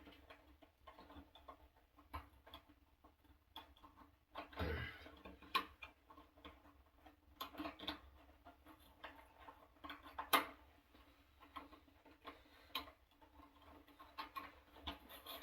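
Irregular small clicks and taps of hands working the old thermostat loose from an electric water heater, with one sharper click about ten seconds in.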